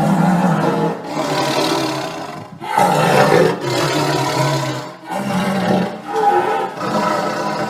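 Tiger roaring and growling: a run of long roars, each one to two and a half seconds, with brief breaks between them.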